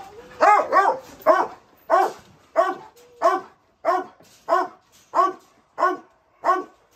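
A dog barking over and over at a steady pace, about twelve barks, one every half second or so.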